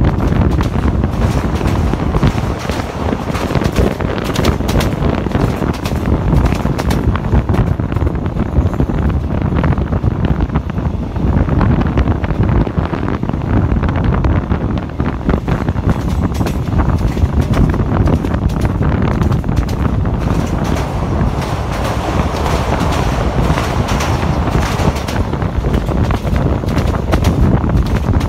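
Wind buffeting the microphone held out of the window of a moving passenger train, over the steady running rumble of the coaches on the track.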